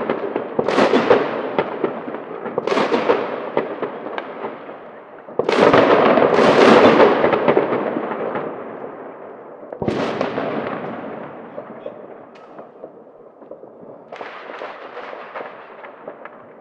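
Private New Year's Eve fireworks and firecrackers going off across city streets. Repeated sharp bangs echo off the buildings, with a dense run of crackling bangs about a third of the way in and a single loud bang past the middle. Fainter crackling follows near the end.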